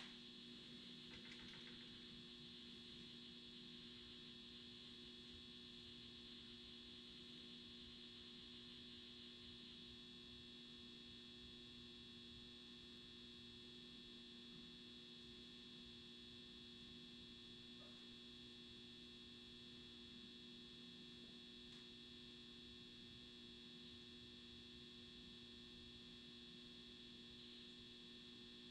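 Near silence with a faint, steady electrical hum made of a few constant tones, one low and one high.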